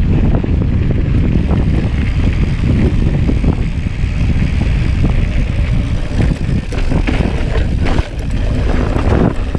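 Mountain bike being ridden, heard from an on-bike action camera: tyres rumbling over the loose cinder and dirt surface with a constant clatter of small rattles from the bike, under heavy wind noise on the microphone.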